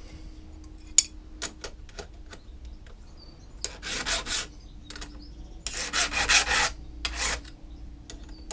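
Hand file rasping against a Stihl chainsaw chain during sharpening: a few light metal clicks, then three rasping file strokes, the middle one longest.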